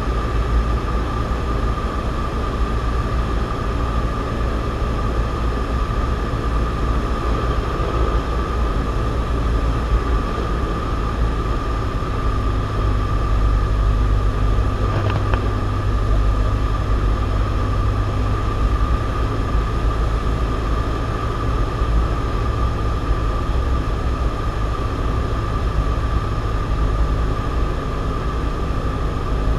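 Cessna 172's piston engine and propeller running in flight, a steady drone heard inside the cabin, shifting slightly in tone about twelve seconds in.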